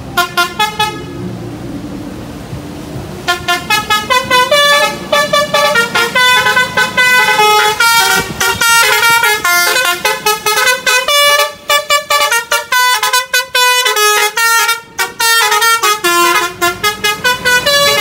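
Basuri telolet horn on a tour bus playing a fast melody of short honked notes: a few quick toots at the start, then, about three seconds in, a long unbroken run of rapid notes jumping up and down in pitch.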